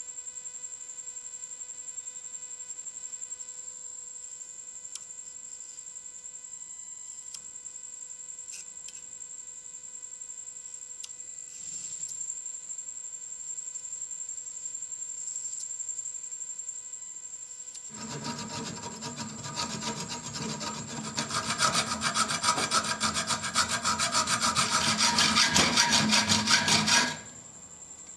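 Steel hammer face being hand-cut with crosshatch grooves: a rapid, loud rasping scrape of a cutting tool on steel that starts about two-thirds of the way in, grows louder and cuts off suddenly near the end. Before it, only a few faint ticks over a steady electrical hum with a high whine.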